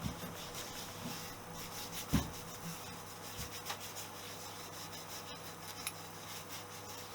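Hand rubbing strokes on the metal exhaust manifold of a Honda XL250S as it is cleaned and painted, scratchy and irregular, over a steady low hum. One sharp knock about two seconds in.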